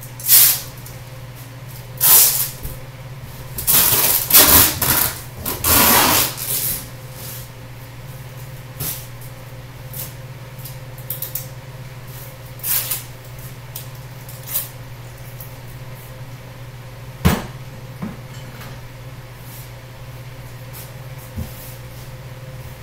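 Cardboard and plastic packaging rustling and scraping as a boxed sofa is unpacked by hand: a cluster of short noisy bursts in the first several seconds, fewer and smaller ones later, and a sharp knock about 17 seconds in, over a steady low hum.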